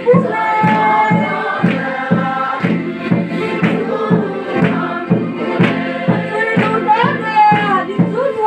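Congregation singing a gospel worship song together over a steady drum beat of about two beats a second.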